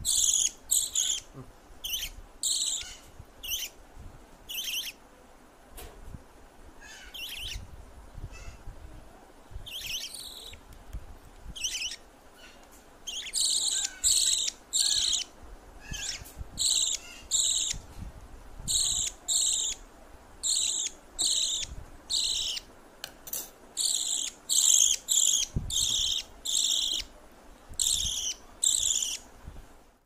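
Budgerigar chicks begging while being hand-fed from a spoon: short, high-pitched chirps repeated two to three times a second in runs, sparser for several seconds in the middle.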